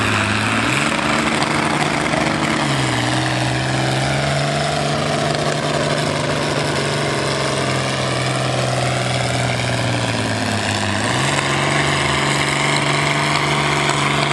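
A red International farm tractor's engine working hard under load as it pulls a weight transfer sled down the track. The engine note holds steady and loud, dipping and picking back up early on and again about eleven seconds in.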